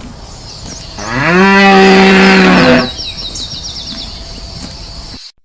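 A cow mooing: one long, loud low call about a second in that rises at the start, holds steady for nearly two seconds and drops as it ends. A quick run of faint high chirps follows.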